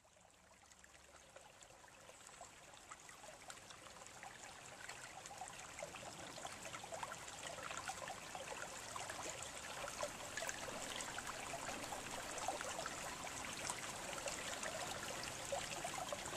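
Quiet trickling, babbling water, fading in from silence over the first several seconds and then holding steady.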